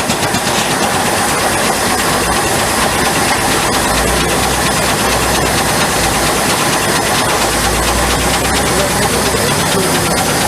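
Steam sawmill machinery running: a steady mechanical clatter with rapid fine ticking, joined about four seconds in by a low hum.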